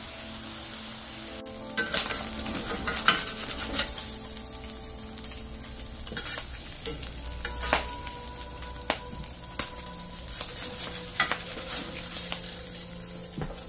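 Smash burger patties frying in a hot cast iron braiser: a steady sizzle with irregular crackles and pops of spattering fat.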